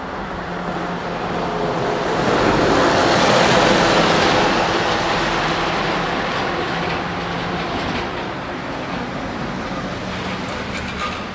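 A heavy lorry drives past close by. Its engine and tyre noise swells over a couple of seconds to a peak, then fades slowly as it pulls away, over steady road traffic.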